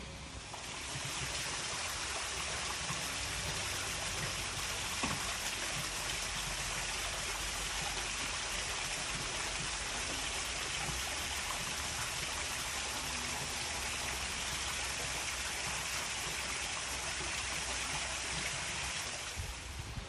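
Water running steadily down a small stepped rock waterfall into a pool: an even, rushing splash that starts about a second in.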